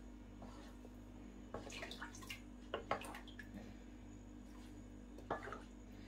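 Faint drips and small splashes of thin yogurt soup falling from a lifted wooden spoon back into the pot, a few soft ones scattered through, over a low steady hum.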